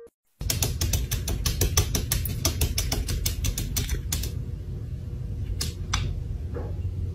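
Rapid clicking from a cat standing up against a glass window, about seven clicks a second for some four seconds, then only a few scattered clicks.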